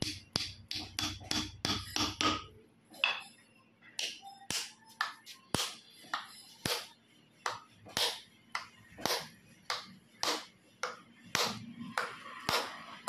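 Hammer blows on a steel hammer head, driving it onto its new wooden handle: a long run of sharp knocks, some with a short metallic ring, settling into about two a second.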